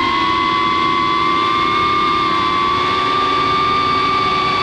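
Cinewhoop FPV quadcopter's brushless motors and ducted propellers in flight: a steady high whine over a hiss of air, its pitch rising slightly about a second in and then holding.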